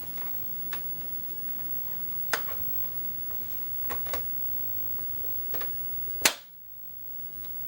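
Scattered clicks and light knocks of a plastic laptop being handled and turned over on a hard surface, with the sharpest knock about six seconds in.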